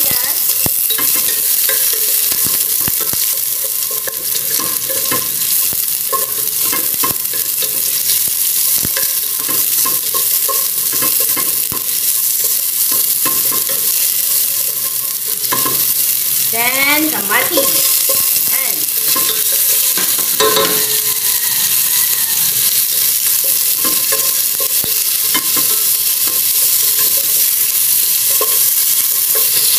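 Garlic, onion and tomato sizzling in hot oil in a stainless steel pot while being sautéed, with a wooden spoon stirring and clicking against the pot.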